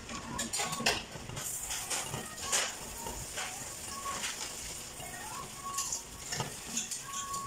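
Pot of shellfish boiling under a glass lid on a gas stove, with irregular pops and clicks from the bubbling. Short faint high tones come and go.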